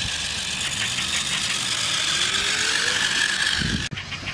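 Remote-control monster truck's motor and gears whirring steadily. The sound cuts off abruptly near the end.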